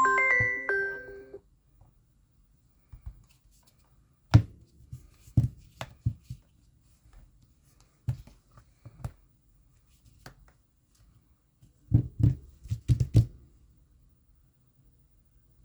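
A phone's chime ringtone ends about a second in. Then come scattered light taps and knocks of a phone being handled, with a quick run of taps near the end.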